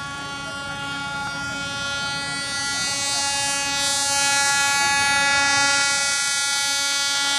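A diesel locomotive's horn sounding one long, steady blast that grows louder as the train approaches.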